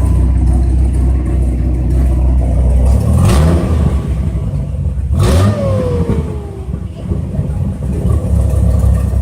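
Vehicle engine running with a steady low rumble; two vehicles pass by about three and five seconds in, the second falling in pitch as it goes away.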